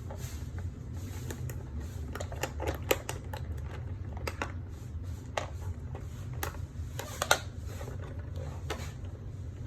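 Irregular clicks and light knocks of plastic toy packaging being handled and pulled at while a doll is worked loose from its box, over a steady low hum.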